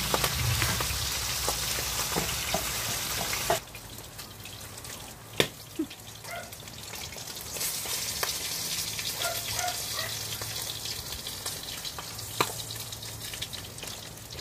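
Catfish simmering in coconut milk in an aluminium wok: a steady sizzling hiss for the first few seconds that cuts off abruptly, then quieter bubbling and a nylon spatula stirring in the wok, with a couple of sharp knocks against the pan.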